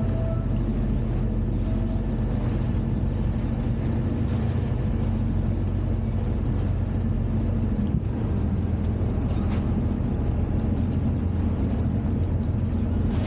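Boat engine running steadily at cruising speed, a low even drone, with the noise of water churning past the boat.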